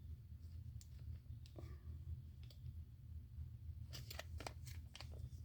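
Faint scattered clicks and light rattles of small hardware being handled, with a quick cluster of clicks about four seconds in, over a steady low hum.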